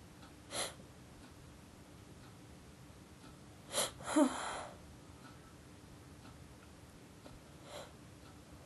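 A woman's sneeze, induced by poking the nose with a pencil point. A sharp sneeze burst comes about four seconds in, followed at once by a short voiced sound. Short breaths come before and after it.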